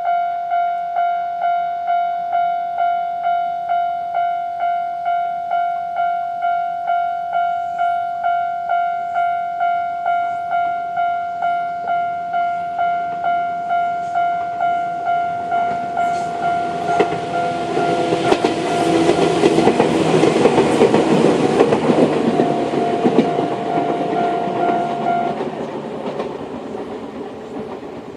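Japanese level-crossing alarm ringing its repeating electronic 'kan-kan' tone in steady, evenly spaced strikes. After about sixteen seconds a Joshin Electric Railway 500-series electric train comes through the crossing, its wheels clattering over the rail joints; the alarm stops shortly after the train is past, and the train's sound fades away.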